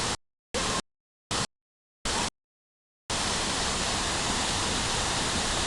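Steady rushing of a waterfall, broken in the first three seconds by abrupt cuts to total silence with short bursts of the noise between, then continuous.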